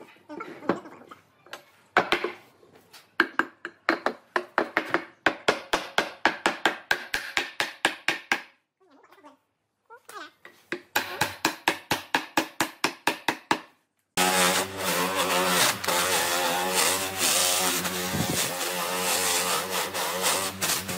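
Fast runs of sharp knocks, several a second, in two stretches with a short pause between. About two-thirds of the way in, a hand-held power tool spinning an abrasive wheel starts up and runs steadily against the wood of a tree-stump leg, its motor giving a steady hum under the grinding noise.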